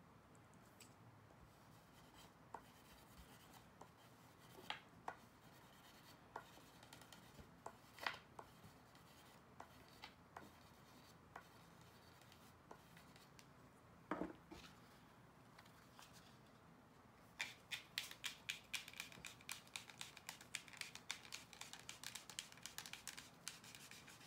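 Hand work on a pool cue's new leather tip and shaft: a few scattered light clicks and taps of tools being handled, then, for the last several seconds, a quick run of short scratchy rubbing strokes, about five a second.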